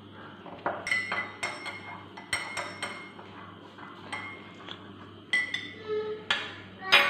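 A spoon clinking against the inside of a glass mug as a drink is stirred: a dozen or more sharp, ringing clinks at an uneven pace, with a louder clink near the end.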